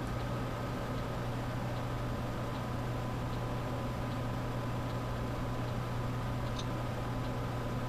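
Steady low hum with hiss and a few faint steady high tones, with scattered faint small ticks and one slightly clearer tick about six and a half seconds in.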